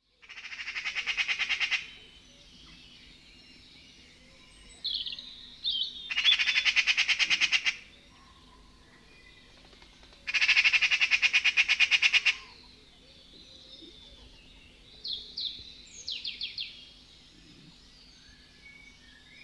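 Eurasian magpie chattering: three long rattles of rapid harsh notes, each lasting a second and a half to two seconds, with a few shorter, softer calls between them.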